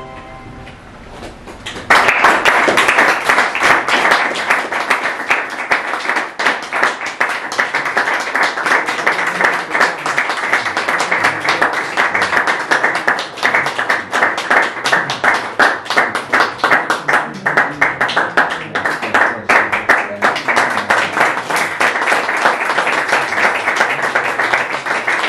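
A small audience applauding. A brief lull, then the clapping starts about two seconds in and keeps going steadily.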